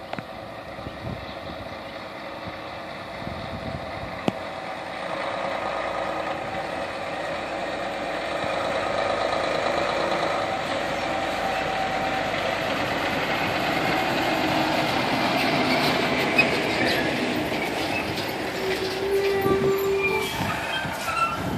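Mack transfer dump truck's diesel engine running as it approaches and drives past, growing louder over the first several seconds and then holding. Near the end a brief squeal of the brakes as it slows to park.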